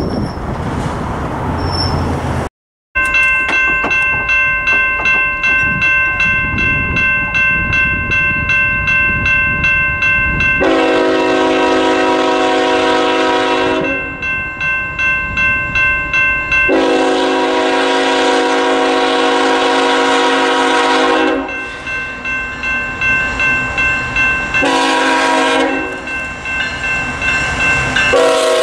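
BNSF freight locomotive approaching with its bell ringing about twice a second. Over the bell its air horn sounds the grade-crossing pattern: a long blast, a longer one, a short one, and a final long one starting near the end. Before this, the rumble of a receding freight train plays for about two seconds before the sound cuts out briefly.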